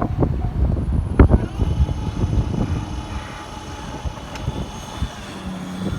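E231-series electric commuter train running over rail joints past the level crossing, a dense clatter with a loud knock about a second in. After about a second and a half the clatter fades, leaving a quieter rumble with thin high steady tones.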